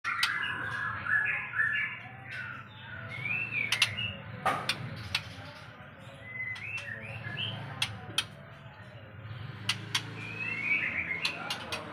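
Captive white-rumped shamas giving short, repeated chirping calls, with sharp clicks scattered throughout.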